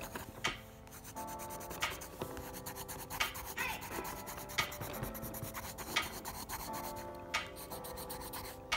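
Deli coloured pencil rubbing and scratching back and forth on sketchbook paper as it shades in colour, under background music with held notes.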